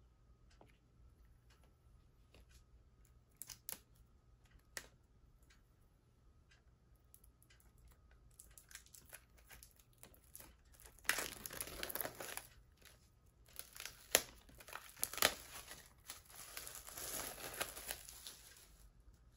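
Clear plastic shrink wrap being torn and peeled off a 4K UHD steelbook case, crinkling and crackling with a few sharp snaps, mostly in the second half. Before that there are a few light taps from the case being handled.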